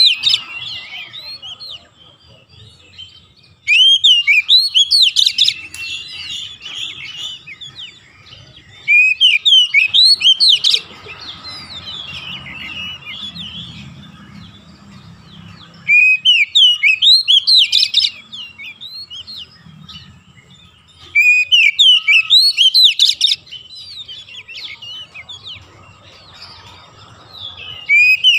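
Male Oriental magpie-robin singing full song. It gives loud phrases about two seconds long of quick, rising whistled notes, repeated every few seconds.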